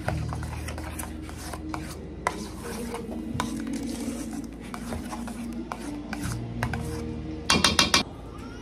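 A utensil stirring and scraping thick sauce in a stainless steel bowl, with many small clicks and scrapes against the metal. Near the end comes a short cluster of loud, ringing metal clanks.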